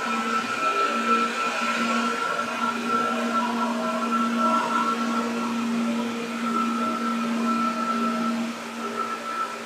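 Running noise heard inside a 205-series electric train car: a steady whine from the traction motors and gearing over the rumble of the wheels on the rails, holding one pitch. It becomes a little quieter near the end.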